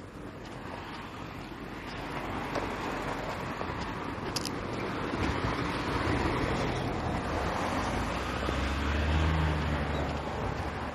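Road traffic at a junction: vehicle noise swells over several seconds, with a low engine hum in the last few seconds.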